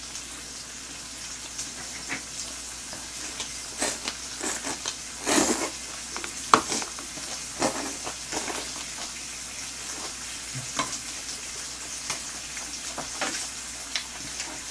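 Pork belly slices sizzling on a grill pan, a steady hiss, with scattered short clicks of metal tongs and smacks of chewing on top.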